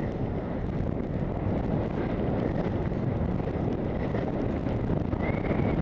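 Steady wind rush on the microphone of a head-mounted camera during a downhill ski run, mixed with the hiss of skis sliding over packed snow.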